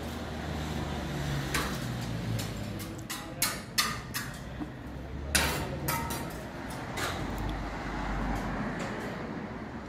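Building-site background with a steady low rumble and irregular sharp knocks and clatters, bunched about three to six seconds in.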